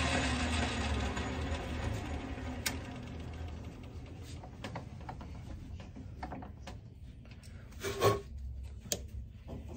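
Logan manual metal lathe winding down: the motor and spindle hum fades away over the first few seconds as the chuck coasts to a stop. After that come scattered light clicks and knocks, with one sharper knock about eight seconds in.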